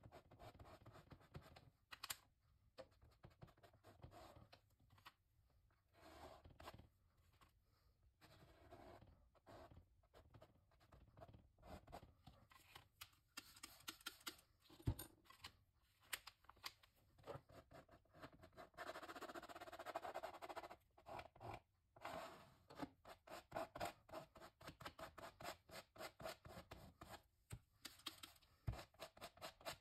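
Faint scratching and dabbing of a sponge working acrylic paint onto the painting surface, in many quick short strokes, with a longer stretch of steady rubbing a little past halfway.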